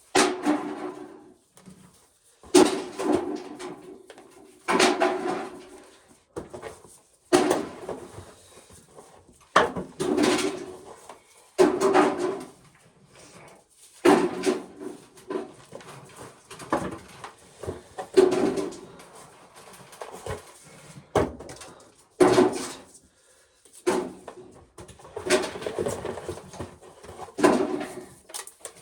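Corn sheller stripping ears of corn, a rattling grind about every two seconds as each ear is fed through and the kernels come off.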